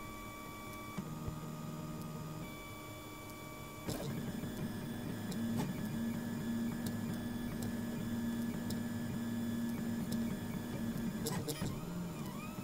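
Printrbot Simple 3D printer's stepper motors whining as the axes move through a print. The steady tone jumps to a new pitch with each move and grows louder about four seconds in. Near the end it rises and falls in repeated sweeps.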